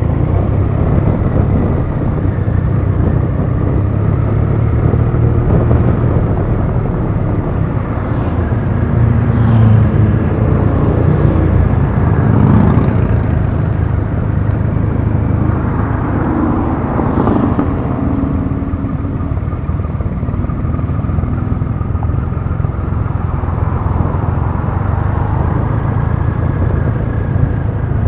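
Triumph Rocket III Classic's 2.3-litre three-cylinder engine running under way at low road speed, heard from the rider's seat. The engine note swells and shifts a few times between about eight and eighteen seconds in.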